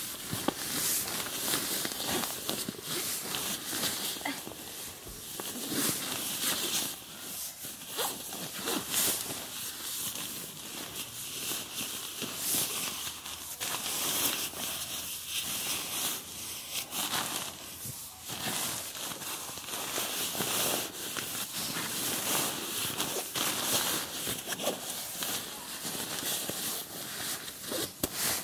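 Marmot CWM down sleeping bag rustling and swishing as it is pushed by hand into its stuff sack. The fabric crinkles continuously, with irregular scrunching pushes.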